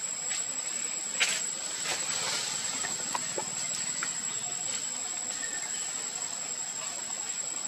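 Steady high-pitched drone of forest insects with a hiss, broken by a few short clicks, the sharpest about a second in, and faint brief chirps.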